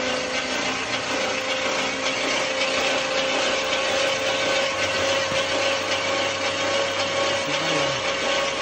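1957 Ford Fairlane's V8 spun over on the starter motor with all spark plugs removed, so it cranks at about 600–700 rpm with no compression beats: a steady mechanical whir with a constant whine.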